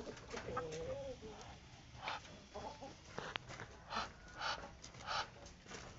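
Free-range village chickens clucking as they feed: one wavering call about half a second in, then a string of short calls and a few sharp clicks.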